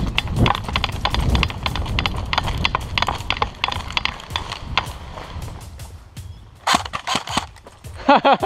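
A rapid, irregular string of sharp clicks and knocks, densest in the first few seconds, with a louder cluster about seven seconds in.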